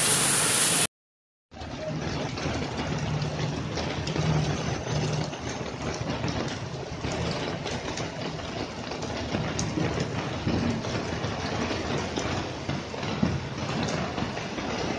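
Traffic driving through a flooded road in heavy rain: car and motorbike engines running over a steady hiss of rain and water. The sound drops out briefly about a second in.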